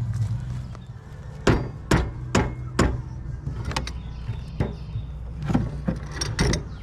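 Hammer blows on metal: four sharp strikes about two a second, then lighter, irregular knocks, over a steady low hum.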